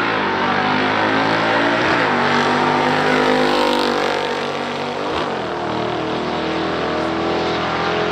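Two V8 muscle cars at full throttle down a drag strip: a 1965 Chevrolet Corvette's 396 L78 V8 and a 1978 Camaro Z28's 350 V8. The engine notes climb in pitch and drop back twice, about two seconds in and about five seconds in, as the cars shift up.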